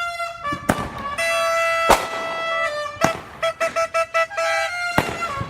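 A backyard firework going off with four sharp bangs spread over a few seconds. Underneath are held, steady tones that change pitch in steps, like music.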